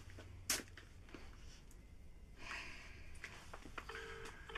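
A click about half a second in, then near the end a telephone ringback tone, the double 'ring-ring' of a British or Irish line, as a call rings out waiting to be answered.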